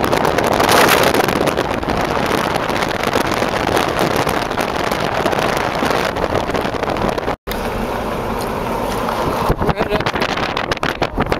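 Wind buffeting a microphone held out the side window of a vehicle at highway speed, over a steady rush of road noise. The sound drops out for an instant about seven seconds in.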